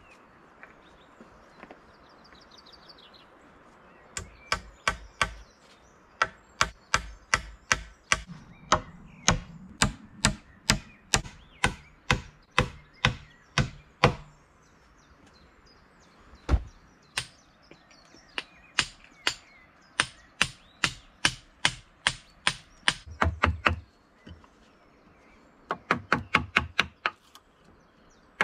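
Steel hammer striking a log crossbeam and post, nailing the joint: a series of sharp blows about two a second, broken by short pauses. Near the end comes a quicker run of lighter taps.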